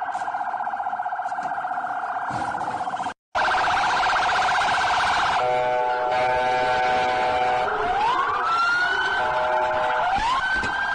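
Electronic police car siren cycling through its tones. It starts with a fast warble that cuts out briefly about three seconds in, then resumes. Around the middle it switches to a steady horn-like tone, then sweeps up into a wail, drops, and rises again near the end.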